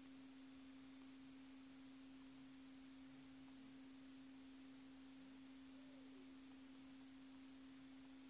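Near silence: room tone with a faint, steady low hum on one pitch.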